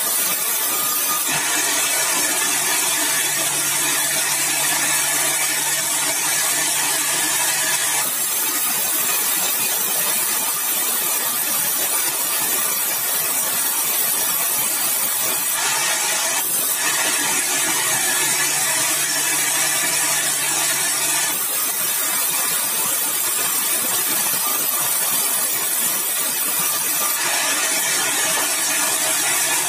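Sawmill running, its saw cutting through yellow balau (bengkirai) hardwood with a steady, hissing noise. A low hum comes and goes three times.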